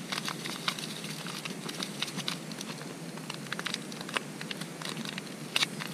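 Foil instant-coffee sachet crinkling in the hand: a run of small, irregular crackling ticks, with a louder cluster near the end.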